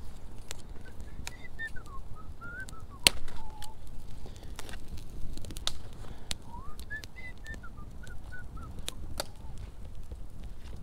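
Wood campfire crackling with scattered sharp pops, the loudest about three seconds in, over a low rumble. A warbling whistled phrase rises and falls twice, once near the start and again in the second half.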